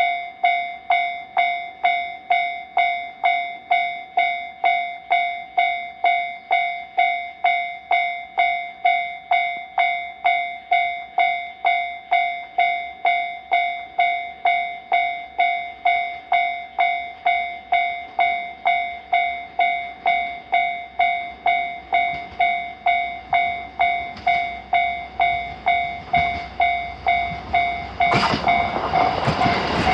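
Japanese railroad crossing warning bell ringing steadily, about one and a half dings a second. A train approaches from about two-thirds of the way in and passes loudly over the crossing near the end, its rumble rising over the bell.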